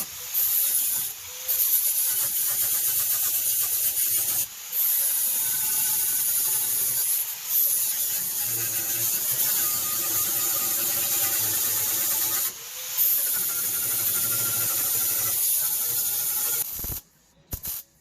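A high-pitched power tool, of the kind used for grinding or cutting metal, runs in several stretches of a few seconds with brief breaks between them. It stops about a second before the end.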